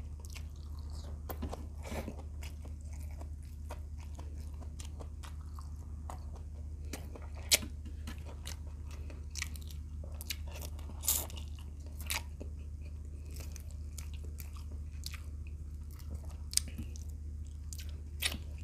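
Close-miked chewing and crunching of fried tilapia with rice, eaten by hand, with irregular sharp wet mouth clicks. The sharpest click comes a little before halfway. A steady low hum runs underneath.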